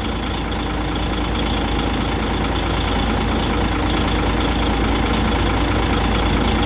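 DAF 105 truck's six-cylinder diesel engine idling steadily. The idle is even: the diagnostic cylinder-balance test shows no large deviation between cylinders.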